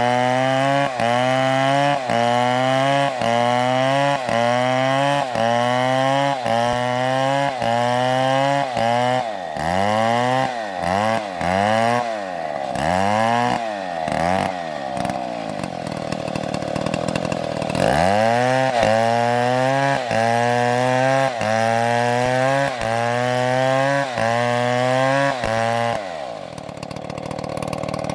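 A two-stroke chainsaw engine running at high revs, its pitch climbing and falling back about once a second as the throttle is pulsed and the chain loads in the wood. Midway the pulses become slower and uneven, and the engine drops away near the end.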